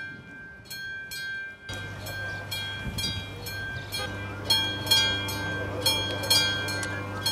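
Railroad crossing bell ringing, a quick even run of strikes, about two or three a second. A low steady hum joins about two seconds in.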